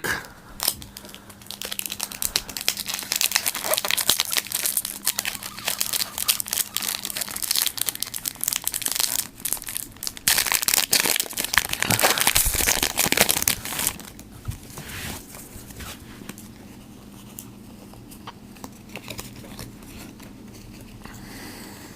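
A Pokémon TCG booster pack's foil wrapper crinkling and being torn open, loudest about ten to fourteen seconds in, then only faint rustling.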